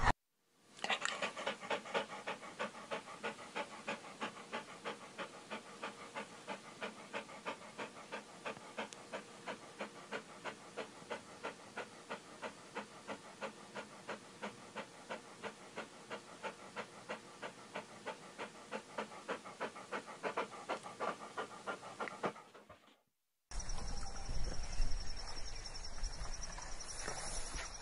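A dog panting in quick, even breaths, about four a second, which stop abruptly about 23 seconds in. After a brief gap comes outdoor background noise with a faint steady high whine.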